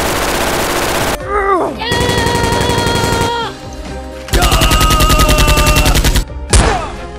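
Gunfire sound effects: three bursts of rapid automatic fire, each one to two seconds long. A falling whistle-like sweep follows the first burst, and two short descending zips come near the end.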